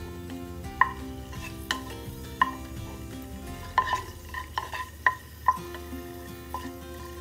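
Cashews frying in hot ghee and oil with a light sizzle, while a wooden spatula stirs them and knocks sharply against the pot several times. Soft background music runs underneath.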